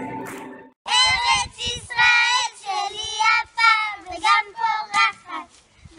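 Group singing and hand clapping fade out in the first second. Then young girls sing a song in short phrases.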